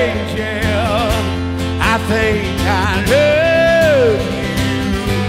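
Country band playing live: guitar and bass under a steady beat, with a voice singing over them and holding one long note about three seconds in.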